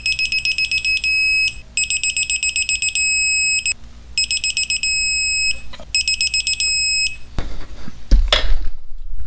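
Digital torque wrench beeping four times in a row as clutch pressure plate bolts are tightened: each time a run of rapid high beeps runs into a steady tone, the signal that the set torque has been reached. A few knocks follow near the end.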